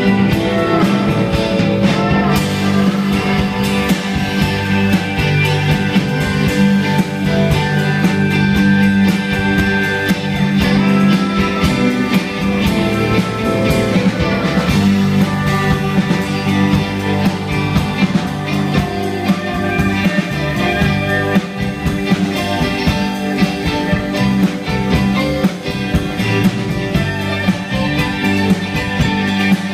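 Live rock band playing: drum kit keeping a steady beat under electric bass, a Hammond-labelled organ keyboard and the plucked, keyed strings of a bulbul tarang.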